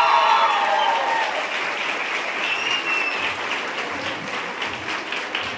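Audience applauding, with cheering that fades out about a second in, leaving steady clapping.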